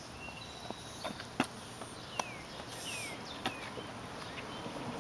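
Outdoor ambience with birds chirping: a thin whistle early on, then three short falling chirps. Several sharp clicks stand out, the loudest about a second and a half in.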